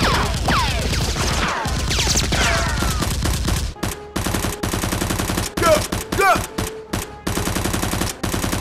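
Rapid automatic gunfire, a dubbed machine-gun sound effect, in long bursts with a short break just before the halfway point. Falling whistles run through the first three seconds.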